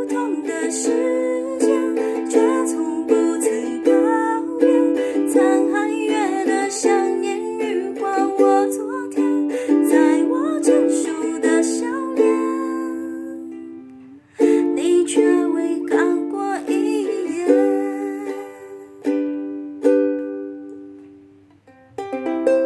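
Ukulele strumming chords in the song's closing section. The strumming stops and rings out about two thirds of the way through, then a few more chords are struck and left to ring, with a final chord at the very end.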